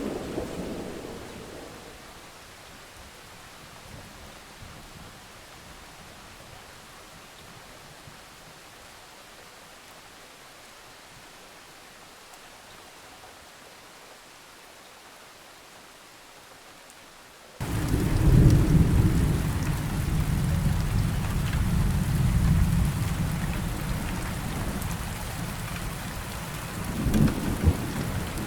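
Thunderstorm: rain falling steadily, with a thunder rumble dying away at the start. About two-thirds of the way in, the sound jumps suddenly to much heavier rain with rolling thunder, and another thunderclap swells near the end.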